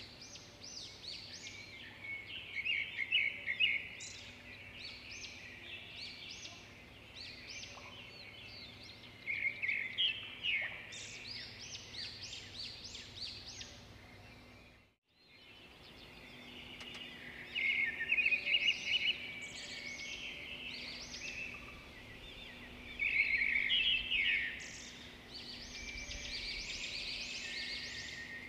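Birds chirping and twittering in quick runs of short calls, cutting out briefly about halfway through.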